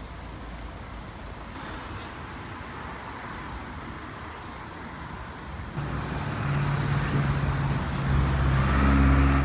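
City street traffic with an articulated city bus passing. From about six seconds in, a heavy engine's low steady hum grows louder, then cuts off suddenly at the end.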